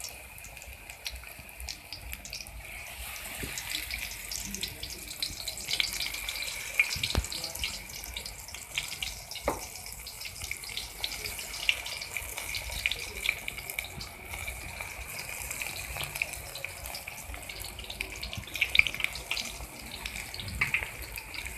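Besan-battered spinach pakoras deep-frying in hot oil in a steel kadhai: a steady sizzle with many small crackles and pops as fresh battered pieces go into the oil.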